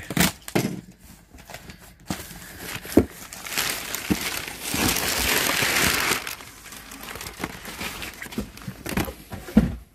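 A cardboard shipping box being opened by hand: flaps pulled back and packing material inside crinkled and rustled, loudest in the middle, with scattered light knocks of cardboard and packaged items.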